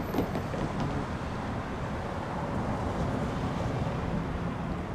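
Road traffic: a minivan driving past, over a steady low engine rumble.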